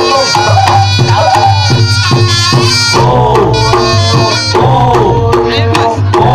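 Loud traditional Reog Ponorogo gamelan music: hand drums beating steadily under a repeating pattern of pitched gong-chimes, with a wavering melody line above.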